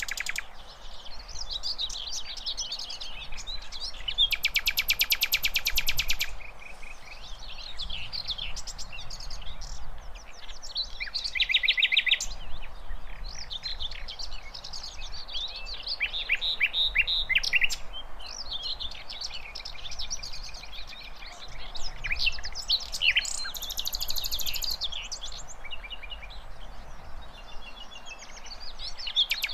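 Sikatan londo flycatcher singing a long, varied, high-pitched song of quick chattering phrases, broken by several fast rattling trills.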